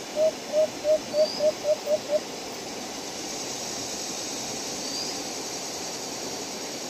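White-eared brown dove calling: a run of about eight short, low hooting notes, speeding up as it goes, ending about two seconds in. Two faint high chirps from another bird follow over a steady background hiss.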